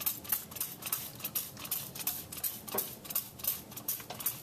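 Trigger spray bottle pumped over and over, squirting red paint onto plaster rock castings: short hisses about three a second.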